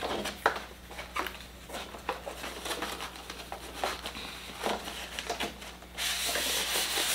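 Cardboard box being handled and its end flap pried open: scattered light scuffs and taps of cardboard. About six seconds in, a steadier scraping rush as the styrofoam insert slides out of the box.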